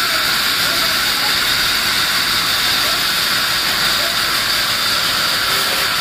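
Sawmill band saw running with a loud, steady high-pitched hiss that holds unchanged throughout.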